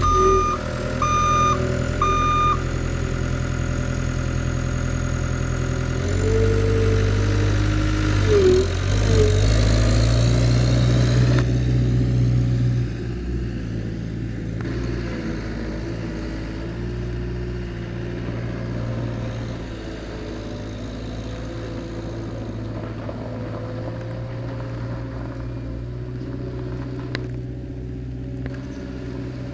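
Cat 262C skid steer's diesel engine running, with its backup alarm beeping about five times at the start. Engine speed goes up from about 6 to 12 seconds in, with a few brief pitch dips under load, then settles to a steadier, quieter idle for the rest.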